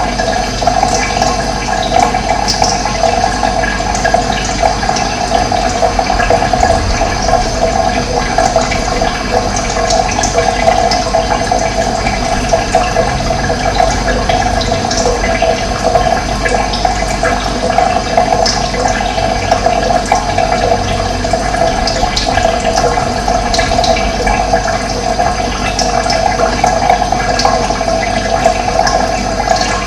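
Running water rushing steadily, with faint, scattered bird chirps above the flow.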